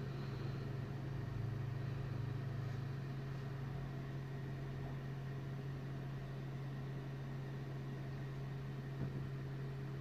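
A steady low hum over faint background hiss; a second, slightly lower hum runs alongside it for about the first three seconds, then drops away.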